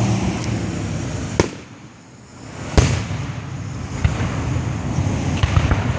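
Aerial fireworks shells bursting: sharp bangs about a second and a half in and again near the middle, the second the loudest, then several lighter pops toward the end, over a steady rumble from the display.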